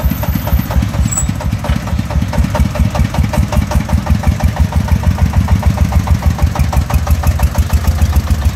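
Single-cylinder diesel engine of a công nông three-wheeled farm truck chugging in a fast, even beat while it pulls through deep sand. The chugging grows louder about halfway through.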